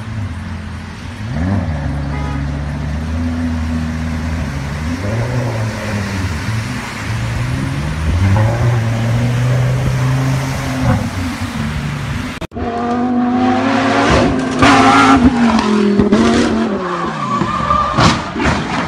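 Sports car engine revving up and down as the car drives through deep floodwater. About twelve seconds in, the sound cuts abruptly to a louder engine revving hard with falling and rising pitch and sharp cracks, along with tyre squeal as a car is pushed around a bend.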